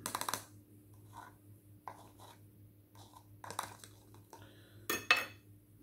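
Light clicks, crackles and knocks of takeaway food and containers being handled while plating up, with a quick run of clicks at the start and a louder crackle about five seconds in.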